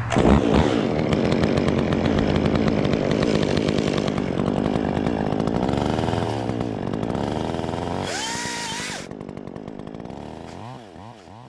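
Chainsaw running at high revs, its engine pitch wavering, then dropping away and getting quieter in the last second or so.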